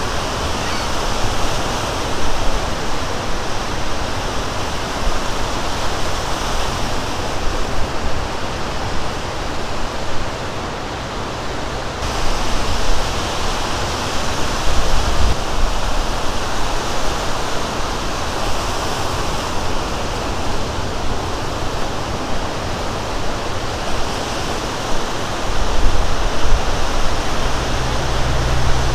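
Lake Michigan surf breaking along the shore: a steady rushing noise, with a low rumble underneath that grows stronger near the end.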